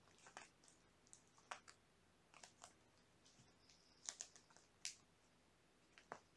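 Faint, irregular scratches and clicks of kittens scuffling while they wrestle on a fleece blanket and a plush toy.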